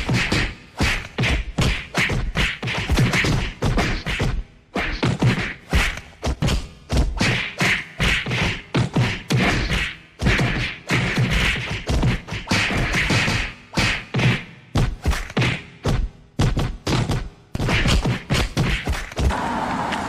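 Rapid, irregular thuds and knocks, several a second, of handling noise as the camera is jostled and its microphone bumped.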